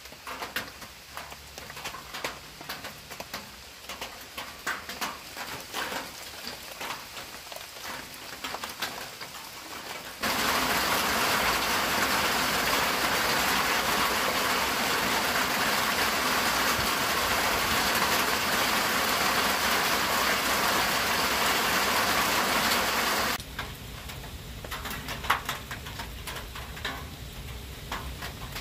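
Campfire crackling and popping, then a sudden change to a loud, steady hiss of heavy rain for about thirteen seconds, which stops just as suddenly and leaves the fire crackling again.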